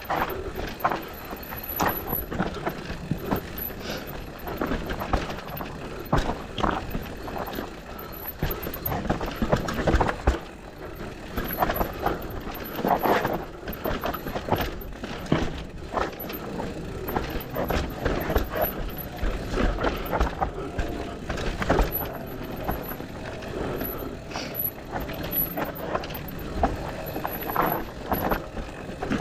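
Mountain bike riding fast down a dirt trail: tyres on dirt, with the frame and chain clattering in irregular knocks over bumps and landings.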